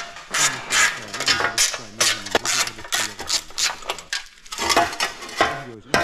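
Dense run of sharp clinks and rattles from loose bolts and the motorcycle's skid plate being handled during removal.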